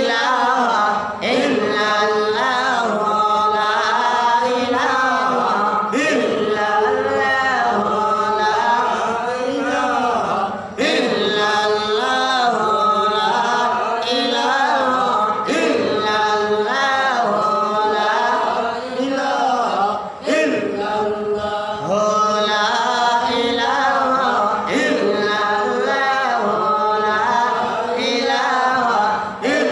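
A man's solo voice chanting into a microphone in long, melodic, ornamented phrases, with short pauses for breath between them.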